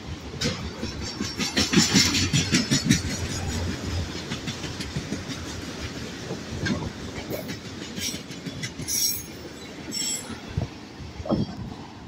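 Autorack freight cars rolling past, their steel wheels clacking over the rail joints in a quick rhythm. The clacking is loudest in the first few seconds, then settles into a softer, steadier rumble.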